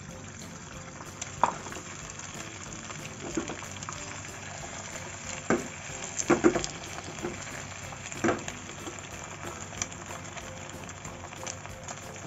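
Beaten egg frying as a thin omelette in a nonstick pan, a steady sizzle. A few sharp knocks sound over it, the loudest a quick cluster about six seconds in.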